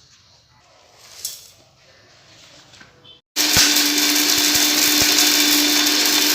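Electric mixer grinder (mixie) switched on about halfway through, starting suddenly and running steadily at speed with a constant hum. It is grinding coarsely pounded dry ingredients (chebulic myrobalan, nutgrass tubers, dry ginger, jaggery, pepper) into powder.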